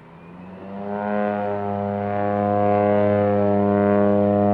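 A de Havilland DHC-2 Beaver floatplane's nine-cylinder radial engine and propeller. It swells over about the first second, then holds a loud, steady drone.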